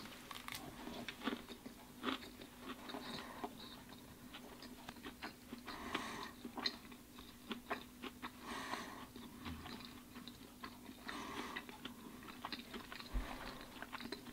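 A man chewing leftover asparagus sushi rolls, two days old with hard rice: faint, close wet mouth clicks and crunches.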